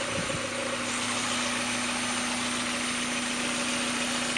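1994 Mazda Miata's 1.8-litre four-cylinder engine idling steadily at an even pitch, heard in the open engine bay. The owner is chasing a noise that he places at the back of the intake side of the cylinder head.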